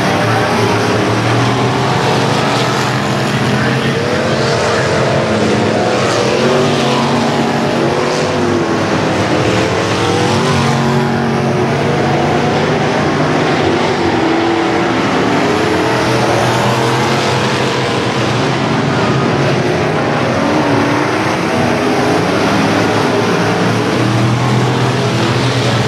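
A field of street stock race cars running flat out on a dirt oval, several engines at once, their pitch rising and falling as they lift and accelerate.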